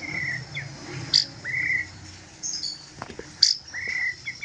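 Caged songbird singing a string of short whistled notes, each curving up and falling away, with sharp high chirps between them.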